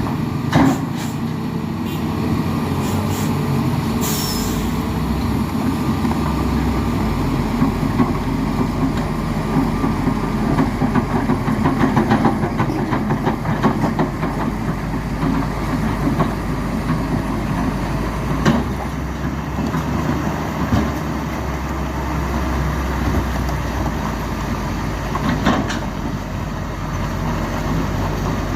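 Heavy diesel truck engine running steadily under load, with a few short hisses of compressed air from the air brakes.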